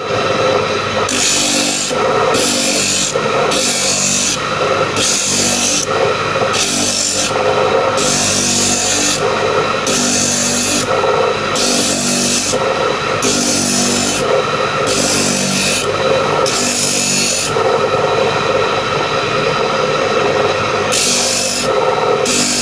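A tool working wood in repeated rasping strokes, about one a second, with a steady hum heard between the strokes.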